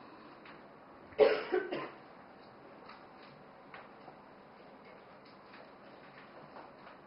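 A person coughs once about a second in: a short cough in two or three quick bursts. Faint scattered clicks are heard otherwise.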